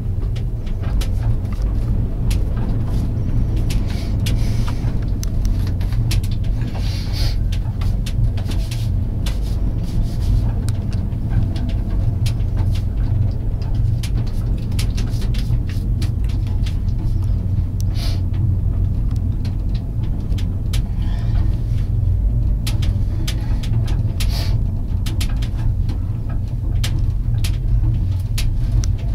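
Steady low rumble inside a gondola cabin riding up a cable lift, with many light clicks and ticks scattered through it.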